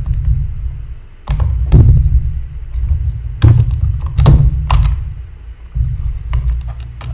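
Small knocks and clicks of parts being handled and fitted as a carburetor is put back onto a Stihl MS250 chainsaw, five or so sharp ones spread through, over a low rumble that drops out briefly twice.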